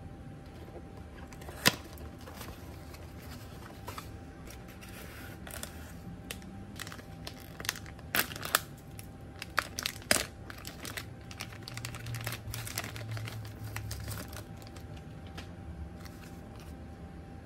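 Clear plastic wrapping crinkling and tearing as it is pulled off a black plastic food tray, in irregular sharp crackles, with one sharp click about a second and a half in and the busiest run of crackles in the middle.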